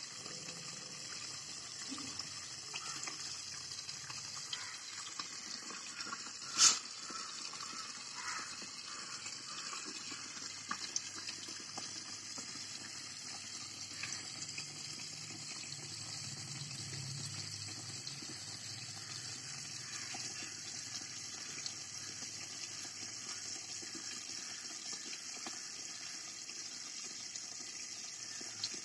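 Steady, even hiss like running water, with one sharp click about seven seconds in.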